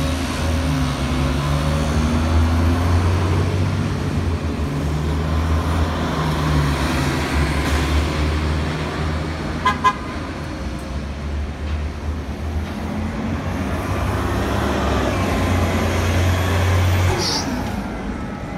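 City buses' engines running with a low steady drone as they pull away and pass close by. About ten seconds in, a vehicle horn gives two short toots.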